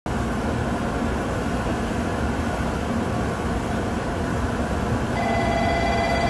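700 series Shinkansen approaching slowly into a station, a steady rumble. About five seconds in, a steady high ringing tone starts and holds.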